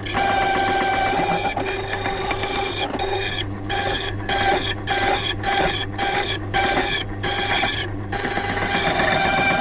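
Silca key-cutting machine running, its cutter milling a bullet ward key blank with a steady whine. From about three and a half seconds in, the sound breaks off briefly about every half second, around eight times.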